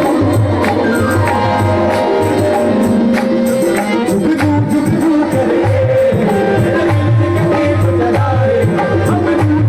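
Live qawwali music: hand percussion keeping a steady rhythm under held melodic notes.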